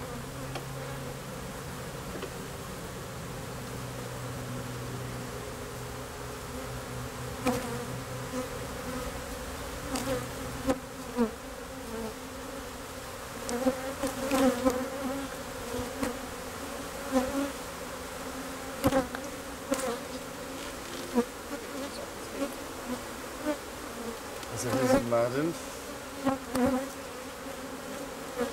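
Honey bees of an opened hive buzzing steadily, with single bees whining past close by; the colony is disturbed and defensive. From about seven seconds in, sharp irregular clicks and knocks of a metal hive tool prying the wooden frames loose and a frame being lifted out.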